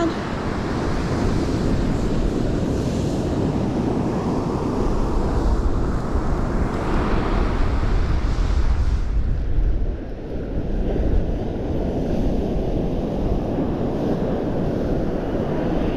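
Gulf of Mexico surf washing onto the beach, mixed with wind buffeting the microphone; the brighter hiss of the surf falls away about ten seconds in.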